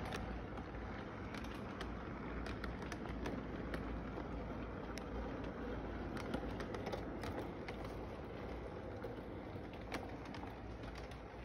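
Model train rolling on its track loop: a steady rumble from the running cars, with many irregular sharp clicks as the wheels pass over the rail joints.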